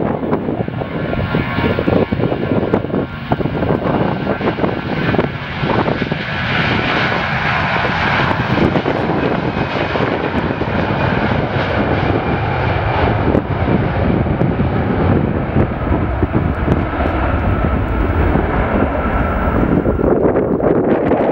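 Airbus A340-300's four CFM56 turbofan engines at takeoff thrust during the takeoff roll: a loud, steady jet engine noise with a whine that is strongest as the aircraft passes, about a third of the way in, over a continuous low rumble.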